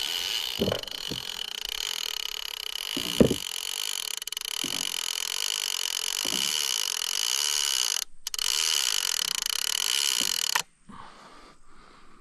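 A steady, shrill chorus of buzzing insects over the river, cut off abruptly near the end. Beneath it come a few soft low thumps from the angler handling the rod and kayak, and faint ticks follow once the buzzing stops.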